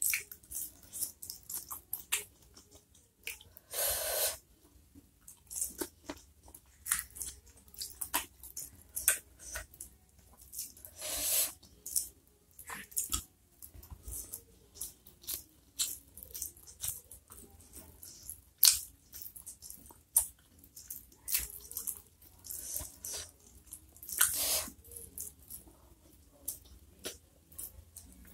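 Close-miked mouth sounds of a person eating by hand, chewing mouthfuls of pineapple, rice and smoked fish: many short wet clicks and smacks. Three longer, louder sounds of about half a second come in about four, eleven and twenty-four seconds in.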